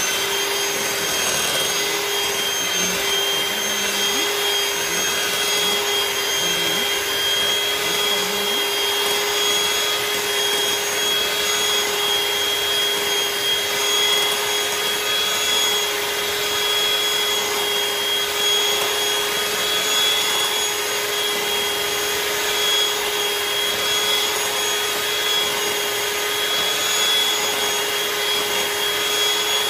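Electric hand mixer running at one steady speed, its beaters whipping thick heavy cream on toward butter, with a steady motor whine.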